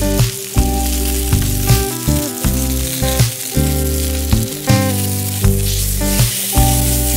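Thick bone-in ribeye sizzling as it sears on a hot grill pan at high heat, under background music with a steady beat.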